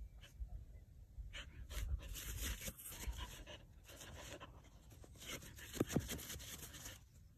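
Dog digging in loose soil with its forepaws, claws scratching and dirt scattering in irregular bursts.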